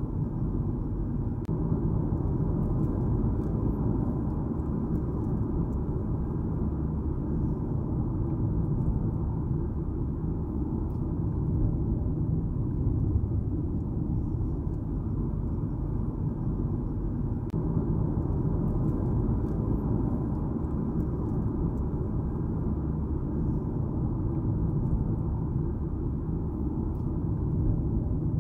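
A car driving steadily: an even, low rumble of road and engine noise.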